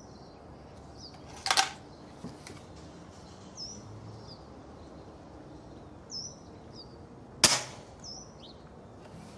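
Hatsan Striker 1000S .177 spring-piston air rifle: a sharp crack about a second and a half in, then the louder, sharper report of the shot about seven and a half seconds in, quite loud. A bird chirps repeatedly in the background.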